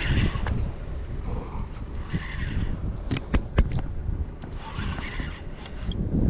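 Wind buffeting the microphone with a steady low rumble, broken by a few sharp clicks a little past the middle.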